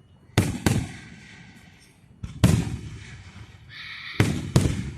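Aerial fireworks shells bursting: several sharp booms, coming in quick pairs about half a second, two and a half seconds and four seconds in, each trailing off in a rumbling echo.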